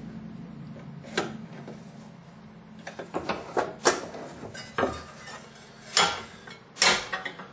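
Metal clanks and knocks of a bench drill press table being loosened and slid up its column: scattered sharp clicks, a cluster about three to four seconds in and the loudest knocks about six and seven seconds in.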